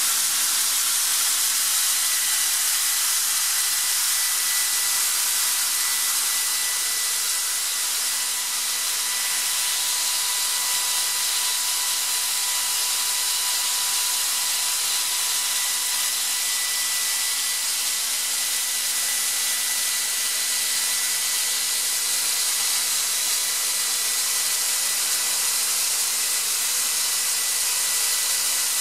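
Atlas Copco ZR 145 oil-free rotary screw air compressor running steadily: an even, loud hiss with a faint high whine held on one pitch.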